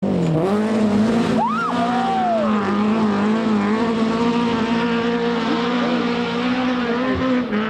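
Rally car engine running at high, nearly steady revs, with a brief sliding whine that rises and falls about a second and a half in.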